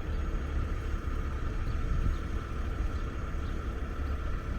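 Wind buffeting the microphone: an uneven low rumble with a faint steady hum above it.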